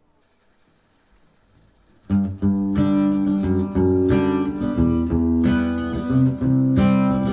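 Background music: after a near-silent start, strummed acoustic guitar begins about two seconds in and plays on at an even level.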